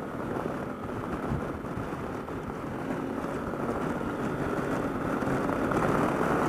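Honda Africa Twin CRF1000L's 1000cc parallel-twin engine pulling hard under acceleration at motorway speed, mixed with wind rush over the rider's helmet, growing steadily louder.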